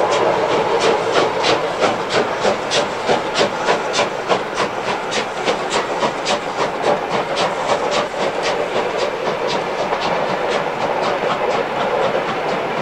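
DB class 23 two-cylinder steam locomotive 23 105 working a passenger train, its exhaust beating about three times a second over the rolling noise of the locomotive and coaches. The beats fade towards the end as the train draws away.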